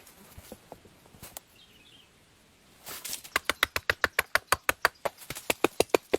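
A rapid run of sharp, evenly spaced taps, about five a second, starting about three seconds in, with a few softer knocks before it.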